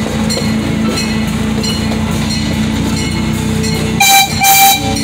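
A miniature amusement-park train ride running along its track with a steady hum and rumble, then sounding two short horn toots close together near the end.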